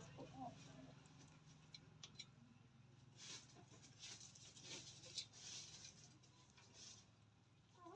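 Faint sounds of chickens moving about: a soft cluck near the start, then a few seconds of light scratching and rustling in the middle, over a low steady hum.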